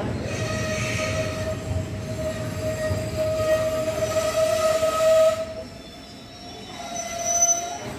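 Coaches of the Hampi Express passenger train rolling slowly past the platform as it pulls in. A long steady whine sits over the rumble and stops about five and a half seconds in. A shorter, slightly higher whine comes near the end.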